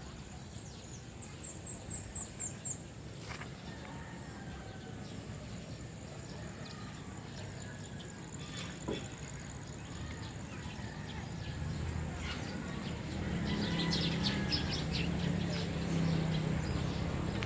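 Birds chirping in short high calls over faint outdoor background noise. From about twelve seconds in, a low steady rumble builds and grows louder.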